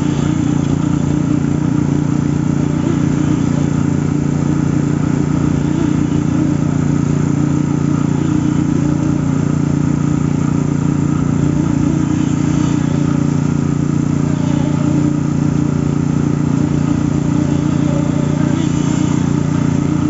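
Steady, unbroken mechanical drone of concrete-pouring machinery: an internal poker vibrator working fresh concrete, with the concrete pump running behind it.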